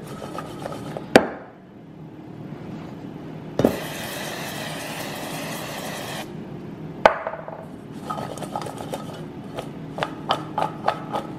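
Stainless steel mixing bowl knocked against a wooden counter a few times, with a steady hiss of about two and a half seconds as the vegetables are seasoned. From about eight seconds in, sliced peppers and onions are tossed in the bowl, clattering quickly against the metal.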